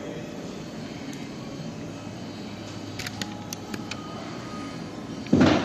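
Steady background hum of machinery or ventilation, with a few light clicks around the middle and one loud thump shortly before the end.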